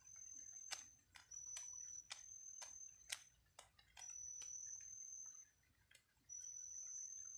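Faint high steady whine that comes and goes in stretches of about a second. Over the first four seconds it is joined by a run of about eight sharp ticks, roughly two a second.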